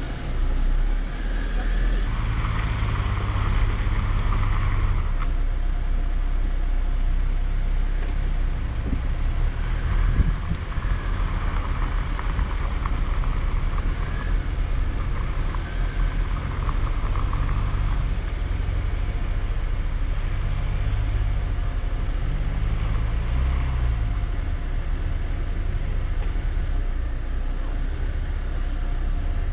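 Jeep Wrangler's engine running at low speed on a rough dirt trail, with a brief rise and fall in engine pitch a little after two-thirds of the way in.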